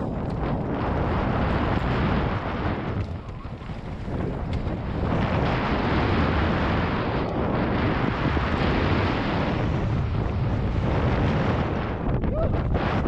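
Wind rushing over a helmet-mounted camera's microphone while a mountain bike rolls fast down a loose gravel and dirt trail, mixed with tyre noise over the stones. It eases for a moment about three seconds in, then picks up again.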